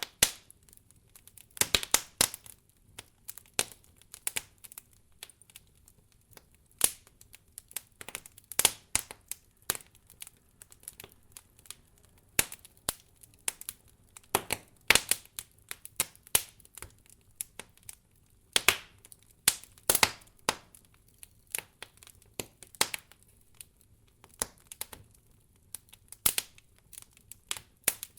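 Fire crackling: irregular sharp pops and snaps, some loud and some soft, with near quiet between them.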